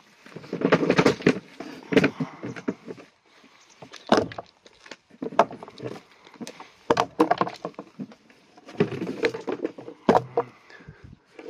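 Sheep at a plastic feed tub crunching compound feed pellets and knocking the tub, in irregular clusters of sharp knocks and crunches.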